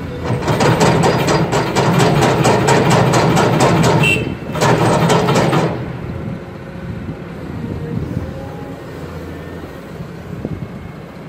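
Cat 320 excavator's diesel engine working hard under hydraulic load as the boom lifts a full bucket of soil: loud, with a rapid even pulsing for the first five or so seconds, then dropping back to a steadier, quieter running as the load swings over the truck.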